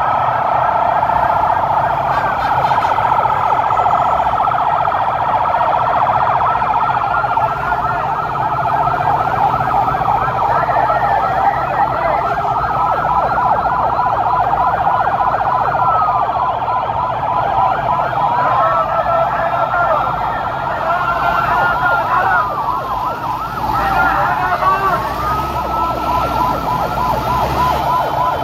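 Several vehicle sirens sounding at once, overlapping fast warbling yelps and slower rising and falling wails.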